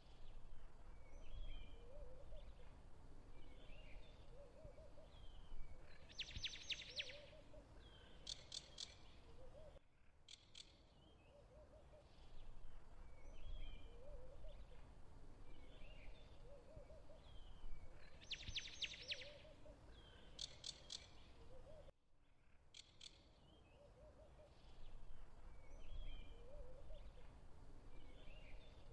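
A looped background recording of birds chirping and calling, with a quick trill about every twelve seconds; the same stretch repeats with abrupt joins about every twelve seconds.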